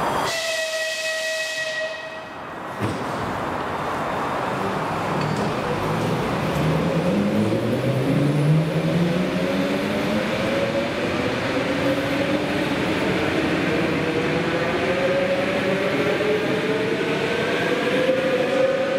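An EP2D electric multiple unit gives a steady whistle blast of about two seconds, then a single knock. It then pulls away, its traction motors whining and rising steadily in pitch as the train gathers speed.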